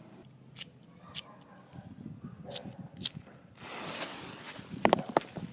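Sharp clicks while a chiflador firework's fuse is being lit: several single clicks, then a hiss of about a second near the middle, then a quick run of clicks near the end.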